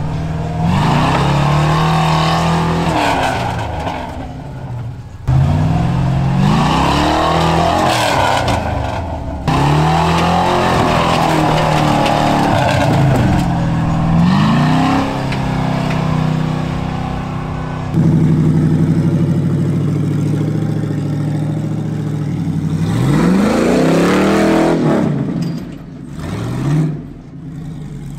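Lifted Toyota pickup's engine revving hard in repeated bursts as it climbs a steep sandy hill, each burst rising and then falling in pitch. The sound cuts off abruptly several times between clips.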